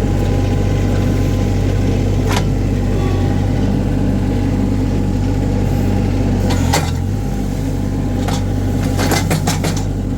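Mini skid steer engine running steadily under work, with a few sharp knocks and snaps: one about two seconds in, one near seven seconds, and a rapid cluster near the end.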